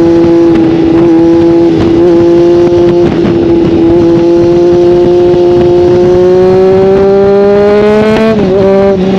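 Motorcycle engine running at steady high revs under way, its note climbing slowly and then dropping sharply about eight seconds in.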